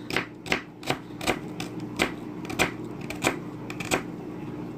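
Kitchen knife chopping through an onion and knocking on a cutting board, in a string of irregular sharp taps about two a second.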